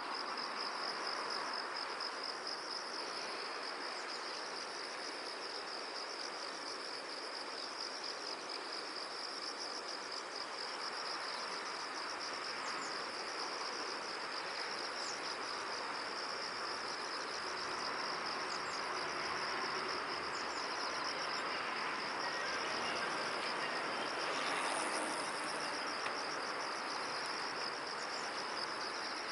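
Insects chirping in a continuous fast, pulsing trill over a steady background hiss of outdoor ambience.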